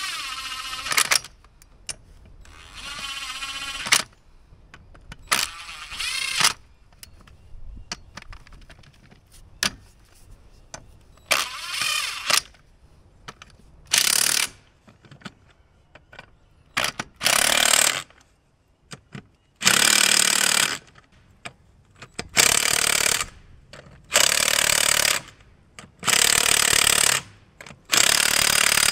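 Cordless impact wrench hammering on a tractor wheel's lug nuts in repeated bursts of about a second each. The bursts come closer together and run longer in the second half.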